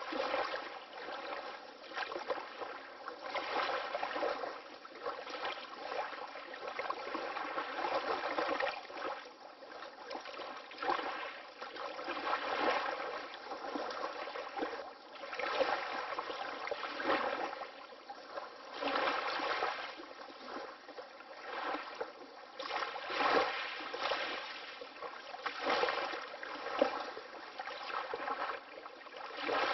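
Water lapping in small waves: a continuous run of little splashes that swell and ebb every second or two.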